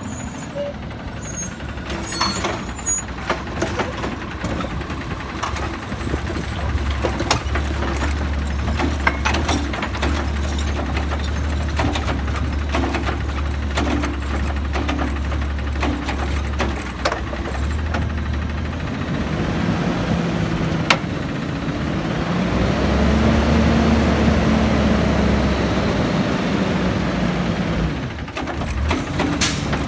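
Automated side-loader garbage truck's diesel engine running and revving to power the hydraulic arm as it grips a curbside cart, lifts it and dumps it into the hopper, with repeated clanks and knocks from the arm and cart. About two-thirds in, the engine rises in pitch and then falls back.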